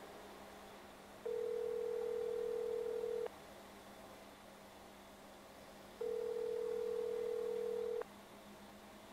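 Telephone ringback tone heard by the caller: two steady beeps of about two seconds each, a few seconds apart, as the call rings with nobody answering.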